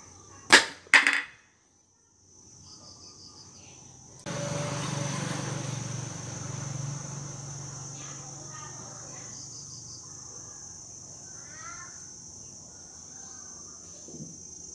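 Two sharp snaps about half a second apart as a homemade forked-branch toy is fired, then from about four seconds a rush of noise that fades slowly. A steady high insect trill runs throughout.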